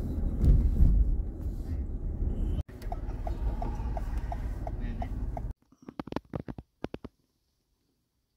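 Car cabin road rumble, then after a cut a turn-signal indicator ticking evenly about three times a second over the rumble of the car waiting at a red light. Near the middle the rumble stops short and a few quick sharp clicks follow.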